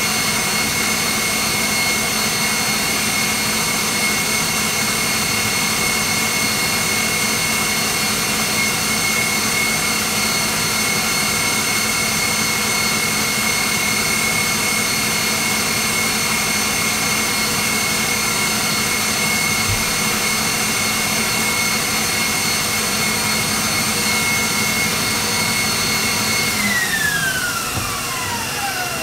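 KitchenAid Professional 600 stand mixer whipping eggs with its wire whisk at speed 8, its motor running with a steady high whine. About 26 seconds in, the whine glides down as the mixer's speed is turned down.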